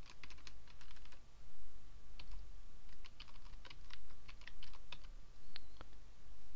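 Computer keyboard being typed on: quick, irregular keystroke clicks in short bursts, entering a web address.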